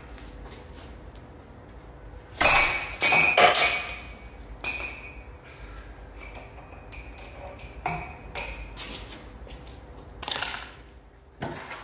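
Several sharp metallic clanks with a short ringing tail, spaced irregularly a second or a few seconds apart, as a strap pulls the crash-bent front panel and chassis leg forward.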